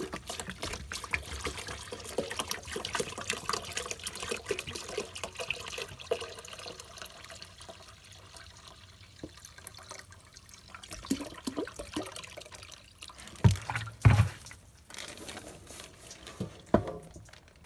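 Vinegar being poured into a plastic bag, splashing with the bag rustling; the pouring thins out about halfway through. A few loud knocks come near the end.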